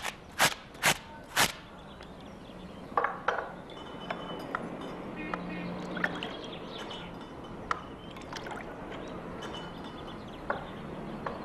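Drinks being prepared: four sharp knocks close together at the start, then scattered clinks of glassware and light pouring over a steady low background.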